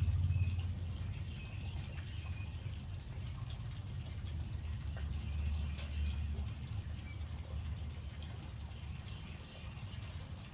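Outdoor ambience: a low rumble that drops off about a second in and swells briefly around six seconds, with scattered faint high chirps and a single sharp click near the middle.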